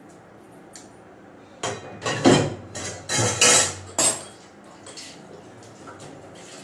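Metal kitchen pots and utensils clattering, a quick run of clanks and knocks that begins under two seconds in and lasts about two and a half seconds, with a few faint clinks after.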